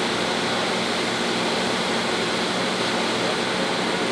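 High-amperage TIG welding arc, run at about 300 amps on carbon steel pipe, hissing steadily with a low hum underneath.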